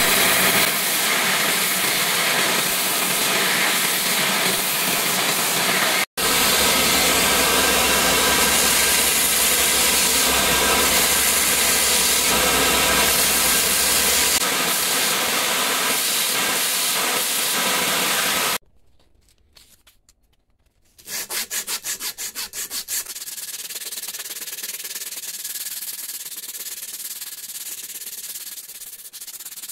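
Belt grinder running with a knife's wooden handle pressed against the moving sanding belt, a loud steady hiss. After a near-silent break about two-thirds of the way in, quieter hand sanding follows: an abrasive strip pulled quickly back and forth around the wooden handle in a shoe-shine motion, first in rapid regular strokes, then as a steadier rub.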